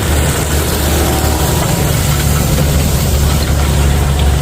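Loud, steady machine drone: a strong low hum with an even hiss over it.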